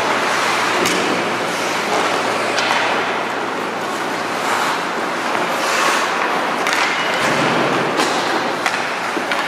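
Ice hockey play on a rink: skates scraping the ice over a steady arena din, with about five sharp clacks of sticks and puck.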